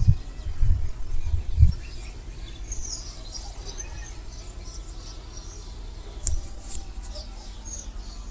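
Birds chirping and calling in short high notes over a faint background hiss, with low rumbling thumps in the first second or two and a sharp click about six seconds in.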